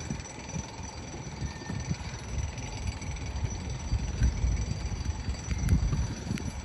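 Low, uneven rumble of the old Black Point railroad drawbridge's machinery as the bridge operates, growing a little louder partway through.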